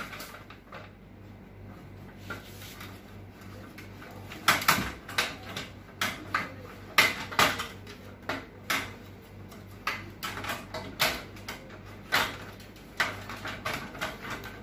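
Plastic clicks, snaps and knocks as the casing of an HP LaserJet Pro 200 Color MFP M276n laser printer is pried and worked loose by hand. The sharp clicks are sparse at first and come thick and irregular from about four seconds in.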